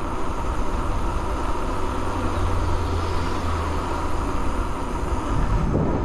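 Steady low noise of wind on the microphone and tyres rolling on pavement as an e-bike rides along a street at speed.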